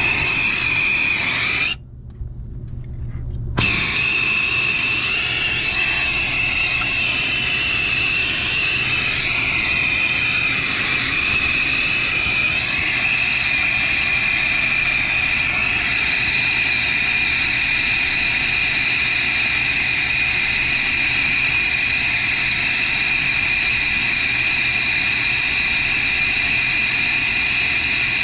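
Acetylene torch flame running steadily with a hiss and a high whistle as it heats a copper pipe for a braze/solder patch. The sound drops out for about two seconds near the start, then resumes.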